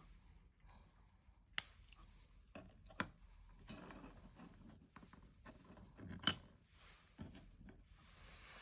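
Plastic model kit parts being handled and pulled apart: soft rubbing and scraping, with three sharp plastic clicks about a second and a half, three seconds and six seconds in.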